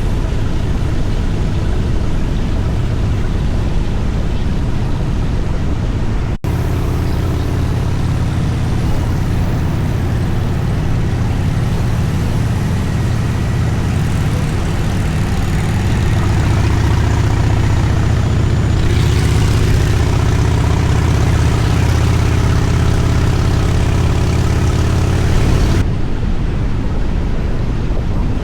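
Harley-Davidson motorcycle's V-twin engine running steadily while riding, a strong low hum under road noise. There is an abrupt cut about six seconds in, and the engine gets a little louder past the middle.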